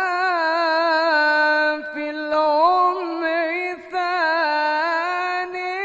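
A man's solo voice singing an Islamic ibtihal unaccompanied, drawing out long, ornamented melismatic notes with a wavering vibrato. The line breaks briefly for breath about two seconds in and again near four seconds.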